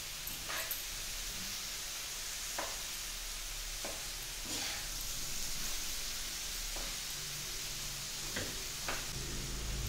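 Aloo gobhi (potato and cauliflower) sizzling in a kadhai over a gas burner as a spatula stirs it, the spatula clicking and scraping against the pan about seven times. A low rumble comes in near the end.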